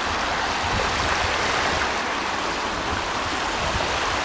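Small waves washing in over a shallow sandy beach, a steady rushing of water.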